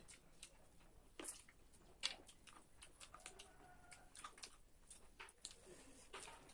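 Faint, close eating sounds: fingers mixing rice and egg curry on a plate and a mouth chewing, a scatter of short wet clicks and smacks, the sharpest about two seconds in.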